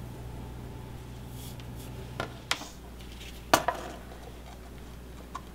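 A few light clicks and taps of a soldering iron and solder wire being handled against a wire and a circuit board, the loudest a little past halfway, over a low steady hum.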